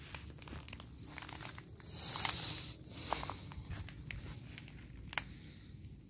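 Footsteps crunching through dry leaves and undergrowth, with rustling louder about two and three seconds in and a sharp click a little after five seconds.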